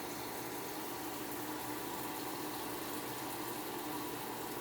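Water running steadily from a faucet.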